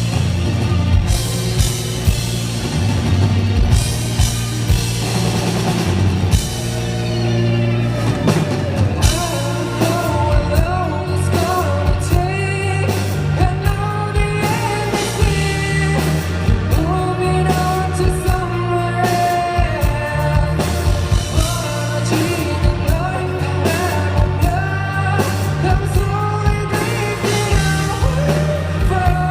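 A rock band playing a song live, with drums, bass and synthesizer. Singing comes in about a quarter of the way through and carries on over the band.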